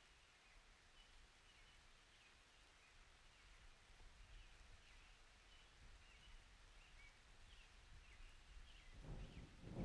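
Near silence: faint room tone with small bird chirps in the background, repeating every second or so. A soft rustling noise rises near the end.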